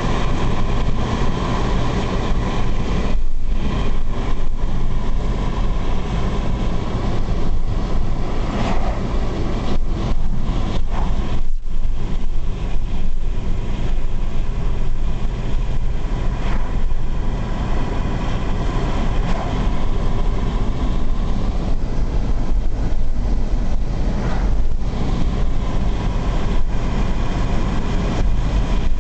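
Wind and road noise rushing in through an open car window at cruising speed, loud and steady, dipping briefly twice.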